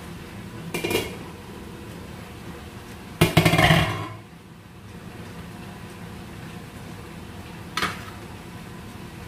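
Glass pot lid and cookware clattering: a short clink about a second in, a louder rattling clatter lasting most of a second around three seconds in as the glass lid is set down on the worktop, and another short clink near the end.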